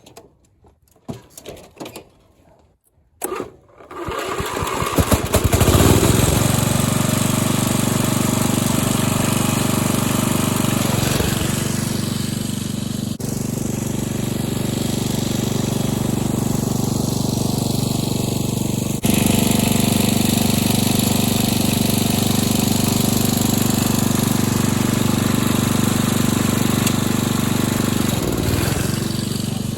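A few faint clicks, then the riding lawnmower's engine starts about four seconds in and runs steadily, its note shifting a couple of times.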